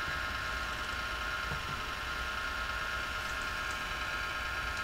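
Steady mechanical hum with hiss and no distinct events.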